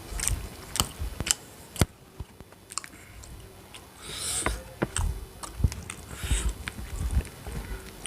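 A person chewing food close to the microphone, with sharp mouth clicks every so often and two short breathy hisses, one about halfway through and one near the end.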